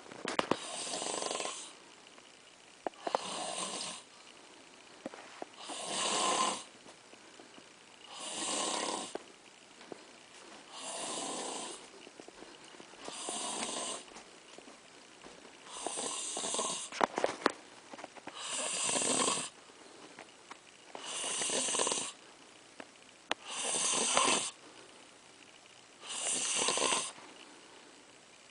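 Slow, regular snoring: about eleven hissy snores, one every two and a half seconds, each lasting about a second. A few sharp clicks fall between them, the loudest about seventeen seconds in.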